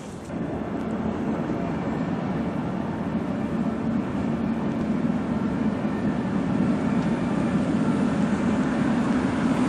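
Steady rumble of a car and a tram approaching along a city street, slowly growing louder.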